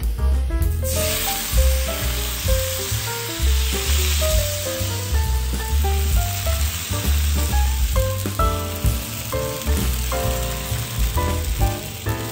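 Thin rice-and-coconut neer dosa batter sizzling on a hot oiled dosa tawa as it is poured and spreads, starting about a second in and continuing steadily, under background music with a strong bass line.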